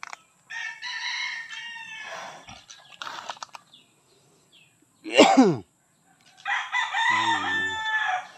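A rooster crowing twice, each crow drawn out over about two seconds. Between the crows, about five seconds in, comes a short, loud cry that falls steeply in pitch.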